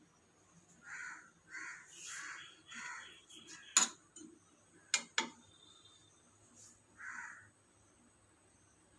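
Bird calling outdoors in a run of short harsh calls: four close together, then one more near the end. Three sharp knocks come in the middle and are the loudest sounds.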